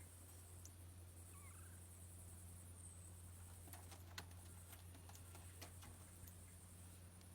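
Faint quiet scene over a steady low hum, with a cluster of small clicks and ticks in the middle, one sharper than the rest: a little owl's beak working as it eats raw ground beef.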